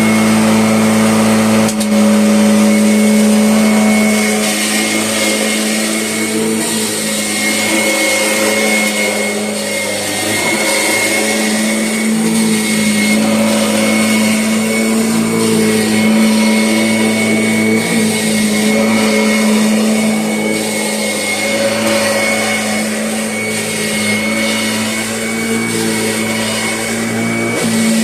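2006 Kirby Sentria upright vacuum cleaner running steadily: a loud, even motor hum with a thin high whine above it.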